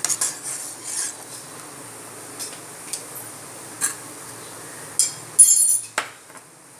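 Metal spoon clinking and tapping against metal cookware, a scattered string of light clinks with a louder rattling clatter near the end, as food colouring is stirred into water in a kadai.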